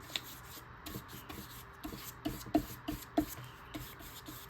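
Paintbrush stroking paint onto paper: a run of short rubbing brush strokes, a couple each second.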